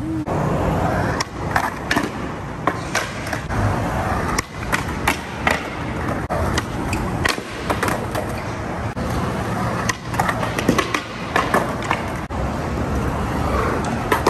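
Skateboard wheels rolling over smooth concrete, with many sharp clacks and knocks of boards striking the ground.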